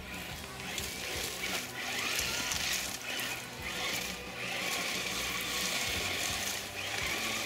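Radio-controlled model car driving over loose gravel in bursts of throttle: gravel hissing and crunching under its tyres, with a faint motor whine that rises and falls.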